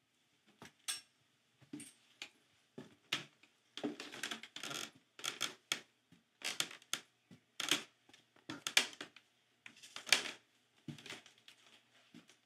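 Footsteps of someone in boots climbing a staircase: a run of irregular knocks and scuffs, about one or two a second.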